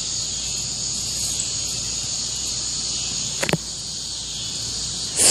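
Steady high-pitched chirring of an outdoor insect chorus, crickets or the like, with a brief knock about three and a half seconds in and a louder one at the very end.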